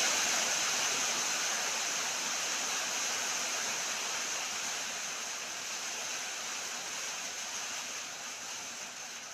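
Steady rushing hiss of running water that slowly grows quieter.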